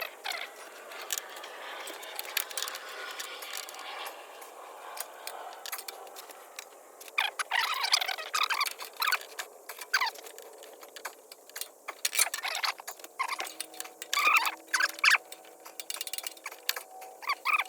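Irregular clicking, clinking and scraping of hard objects being handled, with denser clusters of clinks about midway and again near the end.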